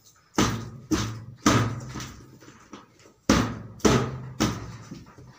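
Open hand slapping a PVC ceiling panel to knock it into its joint: seven sharp thumps, three and then four, each ringing briefly. The stiff, good-quality panel is hard to push in.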